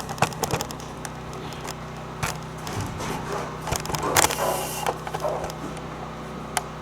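Irregular clacks and knocks of heavy stones being handled and set against a wall, over a steady low hum.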